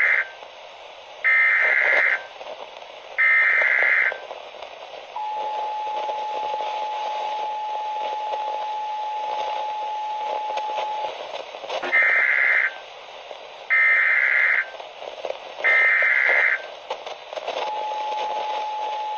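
Emergency Alert System alarm: three short buzzy data bursts, about six seconds of the steady attention tone, then three more data bursts marking the end of the message, all over radio hiss. The steady tone starts again near the end.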